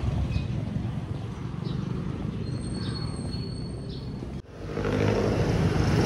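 Street noise: a steady low rumble of traffic, with a faint high thin tone in the middle, growing louder after an abrupt change about four and a half seconds in.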